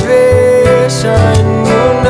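Music: a song with guitar.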